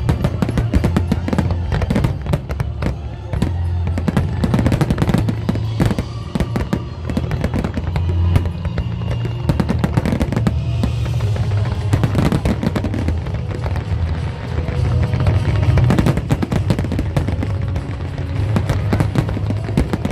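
A fireworks display with shells bursting in rapid, irregular succession: a dense run of bangs and crackles that never lets up. Music plays alongside it.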